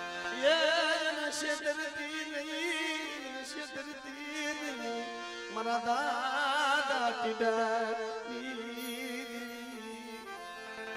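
Indian folk music: a wavering, ornamented melody line over a steady sustained drone, swelling about half a second in and again about six seconds in.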